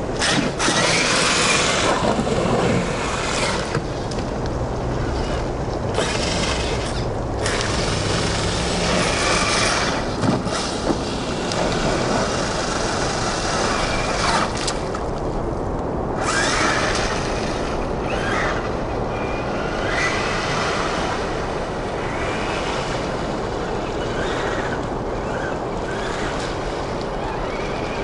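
Electric motors of Traxxas TRX-4 Sport RC crawlers whining on and off, with a few rising pitches near the end, as their tyres splash and churn through a rain puddle on wet pavement.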